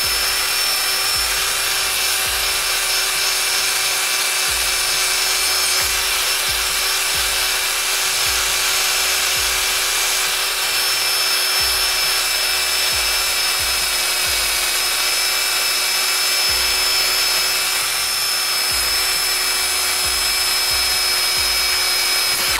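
Electric drill spinning a wire brush against a steel seat bracket, scrubbing the fresh welds and old rust clean. The motor holds a steady pitch under the scraping and stops abruptly at the end.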